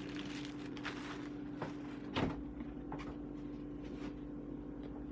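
A few light knocks and clatters of kitchen things being put away, such as a cupboard door shutting, with the loudest knock about two seconds in. A steady low hum runs underneath.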